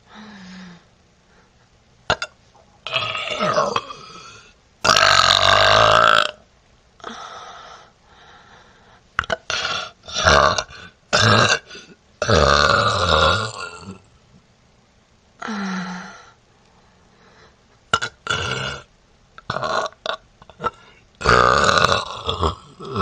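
A young woman burping over and over: a run of a dozen or so separate burps, some short and several long and drawn out, the longest about five seconds in, around twelve seconds, and near the end.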